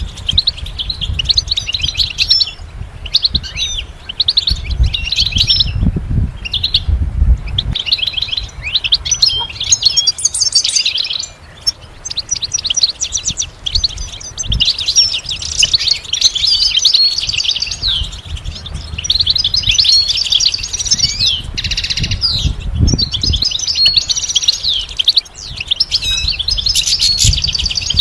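European goldfinch singing: rapid, tinkling twitters and trills in phrases, with brief pauses between them.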